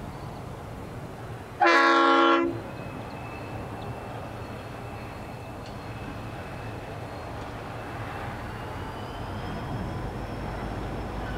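The horn of an approaching QUBE G class diesel locomotive sounds one short blast of just under a second, about two seconds in, a chord of several notes. Then the low, steady rumble of the locomotives hauling a container train, growing slightly louder near the end.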